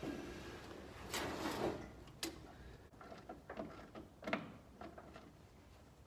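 Scattered light clicks and knocks of a replacement voltage regulator being handled and fitted onto a car's firewall, with a sharp click a little after two seconds and a cluster of clicks between three and four and a half seconds in.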